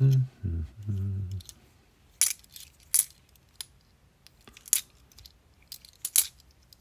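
£2 coins clinking as they are handled one at a time from a small stack in the hand, a few separate sharp clinks spaced out by a second or so. A man's short wordless vocal sound comes in the first second and a half.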